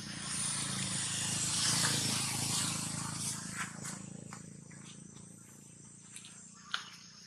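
Outdoor background with a passing motorbike, its sound swelling to a peak about two seconds in and then fading away. Afterwards come a few faint clicks and rustles of dry leaves, with one sharper click near the end.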